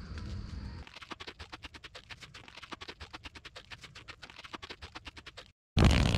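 A fast, irregular run of clicks fills most of the clip. Near the end comes a short, loud rasp of duct tape being pulled off the roll.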